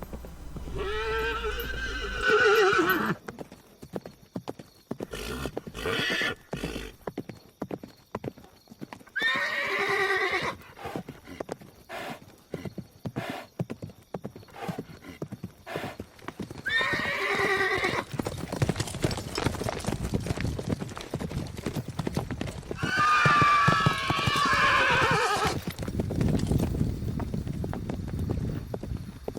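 Horse whinnying four times, each call falling in pitch, over a steady run of hooves clip-clopping.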